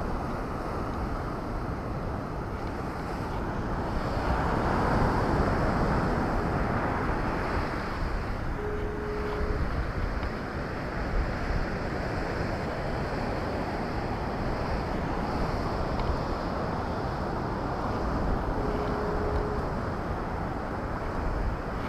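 Wind buffeting the microphone in a steady rushing noise with a deep rumble, swelling into a stronger gust about four to six seconds in.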